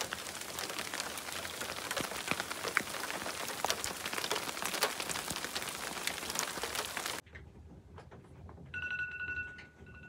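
Rain and sleet falling on a truck's metal body, a dense stream of small ticks that stops abruptly about seven seconds in. Near the end a smartphone alarm tone sounds steadily.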